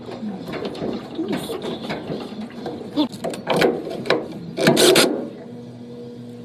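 Hand tools and metal parts working on a washer's motor pulley and belt: irregular ratcheting clicks and knocks, with a few louder clanks past the middle. A steady low hum starts near the end.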